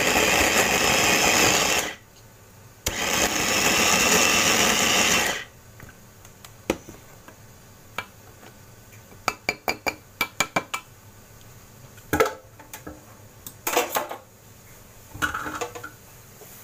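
Small electric food chopper running in two bursts of about three seconds each, blending tomatoes and chilies to a pulp in its clear bowl. After that come a run of quick light clicks and a few knocks as the bowl and its lid are handled.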